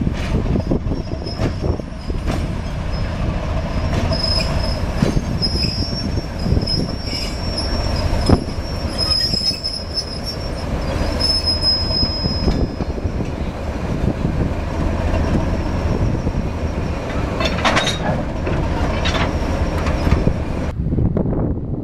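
Diesel shunter 507 moving slowly at low speed, its engine running with a steady low rumble. Wheels squeal thinly and on and off from about four to twelve seconds in. Scattered knocks and clanks come from the running gear, with a cluster of them near the end as it draws up to the carriage.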